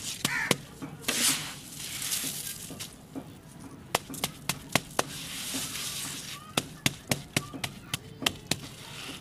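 Coarse gravel swept by hand into a plastic bucket, a grainy rushing hiss. From about four seconds in it gives way to a run of sharp taps, two or three a second, as a palm pats and packs the gravel level in the bucket.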